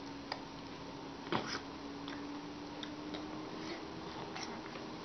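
A few small, irregular wet clicks and smacks of a baby's lips and mouth on a lemon half, the loudest a little over a second in, over a steady low hum.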